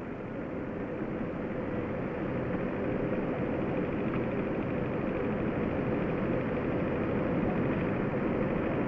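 Steady running of heavy machinery with a faint hum, growing slowly a little louder: the bridge-building gantry being turned above a column.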